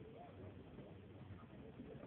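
Faint, distant voices of several people talking over a low rumble.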